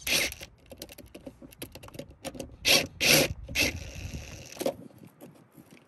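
Ryobi cordless drill with a socket bit backing out the coat-hook screw in a car headliner: a run of sharp mechanical clicks and short bursts, the loudest about three seconds in, with a brief run of the drill about four seconds in.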